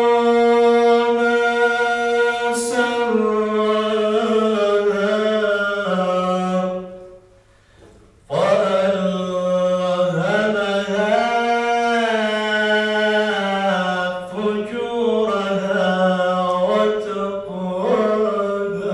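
A man chanting solo and unaccompanied into a microphone, holding long notes with ornamented turns and glides in pitch. He breaks off for a breath about seven seconds in and starts again a second or so later.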